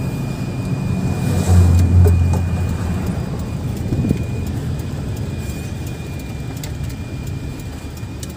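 Inside the cabin of an Isuzu D-Max pickup on the move: its diesel engine and the tyres keep up a steady low rumble, which swells into a deep drone about a second and a half in and then slowly eases off. The engine, which used to stall when driven, keeps running; its stalling fault is now cured.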